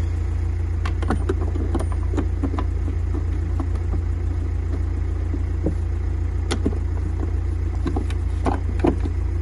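Scattered light clicks and knocks of a battery cable and plastic fittings being handled in a van's under-seat battery compartment, over a steady low rumble.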